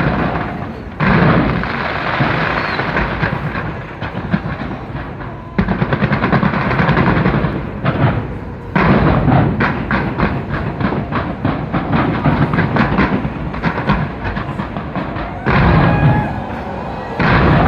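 Fireworks barrage: a continuous wash of booming bursts and rapid crackling. Loud fresh volleys break in about a second in, around six and nine seconds, and twice near the end.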